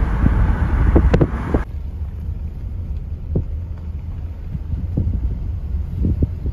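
Wind buffeting the microphone through a moving car's open side window, with road rumble. About a second and a half in it cuts abruptly to a quieter low wind rumble on the microphone, with a few faint knocks.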